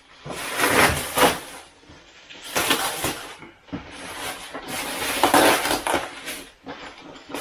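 A packaging box being forced open by hand: three rough stretches of tearing and scraping, the longest in the second half.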